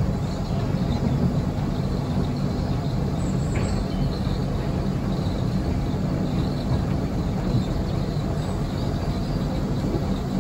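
Fowler diesel shunting locomotive under way, its engine running with a steady low hum, along with the rumble of its wheels on the rails.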